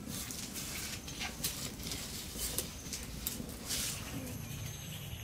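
Open wood and charcoal fire crackling, with irregular sharp pops over a low rumble.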